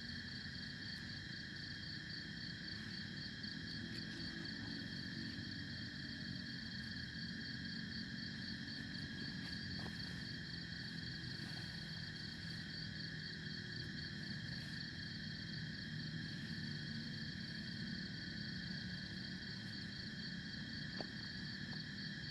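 Forest insects, crickets and the like, trilling steadily at several overlapping pitches, one of them a fast pulsing trill, over a low steady background rumble.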